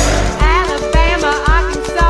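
Background music with a steady beat of about two bass pulses a second under a wavering melody, with a brief rushing sweep at the very start.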